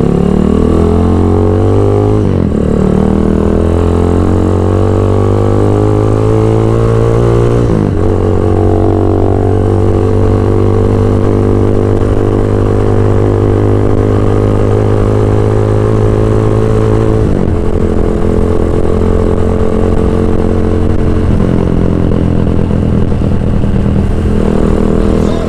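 Motorcycle engine through a Villain Shorty open muffler while riding, a deep bassy exhaust note. It climbs in pitch and drops twice in the first eight seconds, then runs at a steady pitch with smaller changes later on.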